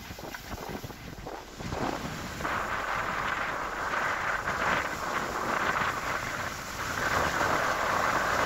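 Rough sea surging and waves breaking against a concrete sea wall, with wind rushing over the microphone; the noise swells about two seconds in and stays loud.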